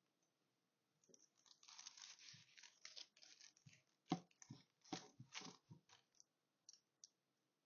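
Parchment paper crinkling and rustling as it is handled, a run of crackly noises with the sharpest crackle about four seconds in, then two light ticks near the end.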